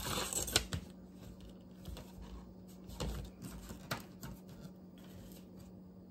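Hand-handling noises of small crafting items: a brief rustle at the start, then scattered light clicks and taps a second or so apart, over a steady low hum.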